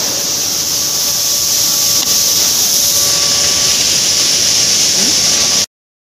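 Loud, steady hiss of power-plant machinery noise with a faint steady hum underneath. It cuts off suddenly near the end.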